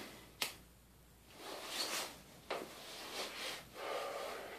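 A cigarette being lit: a lighter clicks sharply about half a second in and again about two and a half seconds in, with soft breathy drags and exhales between and after.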